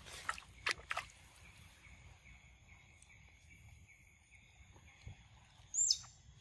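A young macaque chewing mango, a few wet smacking clicks in the first second, over a faint steady high-pitched insect buzz. About six seconds in comes a single sharp bird call that drops steeply in pitch, the loudest sound.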